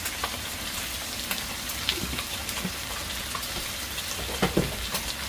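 Chicken pieces sizzling steadily in oil in a frying pan, with a few light knocks of a spatula in the pan about two and four and a half seconds in.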